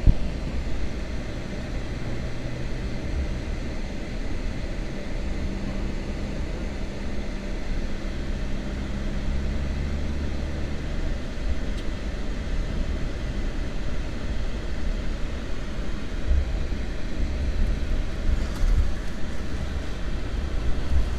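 Steady low rumble of a car driving along a smooth road, heard from inside the cabin.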